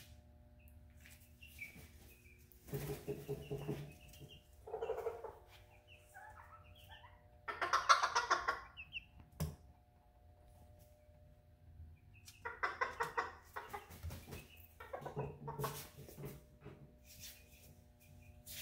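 A cockerel clucking and calling in several short bouts of one to two seconds each, with pauses between them. The loudest bout comes about eight seconds in.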